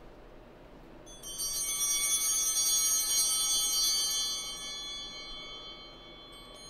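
Altar bells rung about a second in: a cluster of high bell tones that rings out and fades over about three seconds.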